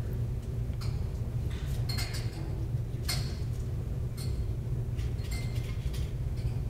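Steady low room hum with several short, light clinks scattered through, like glassware or dishes being handled.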